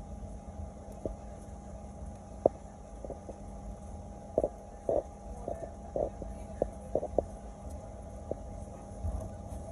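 Inside the cabin of a Boeing 737-900 taxiing: a steady low rumble and engine hum, with a string of short, irregular knocks and rattles as the airliner rolls over the taxiway, the sharpest about two and a half seconds in and a cluster of them in the middle.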